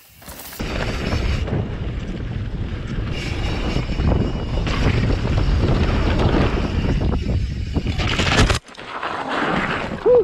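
Heavy wind rush on a helmet camera's microphone as a mountain bike descends a trail at speed. The rushing cuts off abruptly after about eight and a half seconds, returns more weakly, and ends in a brief loud hit as the bike crashes.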